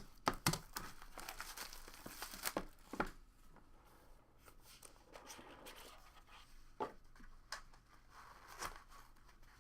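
Packaging being torn open and crinkled as a sealed trading-card box is opened. Loud tearing and crackling in the first three seconds, then quieter rustling with a few sharp clicks.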